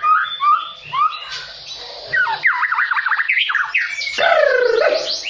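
White-rumped shama singing a loud, varied song: a run of fast rising-and-falling notes, then a string of downward-sweeping whistles near the end.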